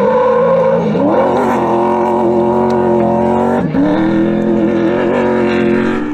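Rally-prepared Toyota Hilux pickup's engine running at high revs under hard acceleration. The revs climb about a second in, drop sharply and pick up again a little over halfway through, then hold high.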